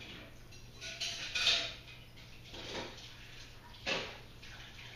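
Rustling and light clattering of bicycle packaging being handled and pulled off, in three short bursts.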